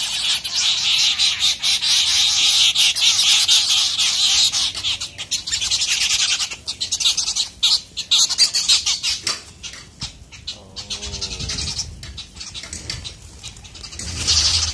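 Several birds squawking and chattering harshly as they fight, a dense, rapid racket that thins out about nine seconds in.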